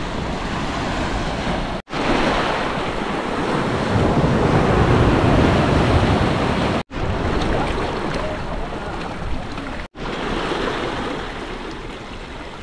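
Surf washing onto the shore, with wind buffeting the microphone. The sound drops out abruptly three times.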